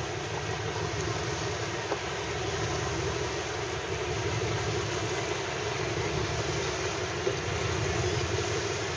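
Boat engine running, a steady low drone with no change in speed.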